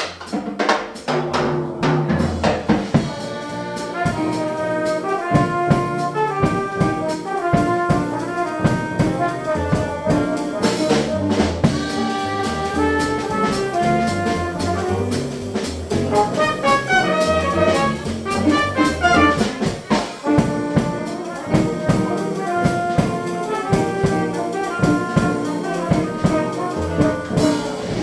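Live small-group jazz: a brass melody line from the trumpet and bass trumpet over piano, bass and a drum kit keeping time.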